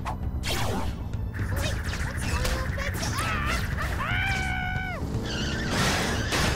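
Cartoon action soundtrack: driving background music with a steady beat under a string of crash and hit sound effects, and a held, pitched cry or tone about four seconds in.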